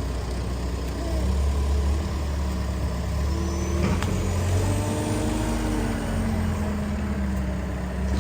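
A vehicle engine running steadily with a low drone.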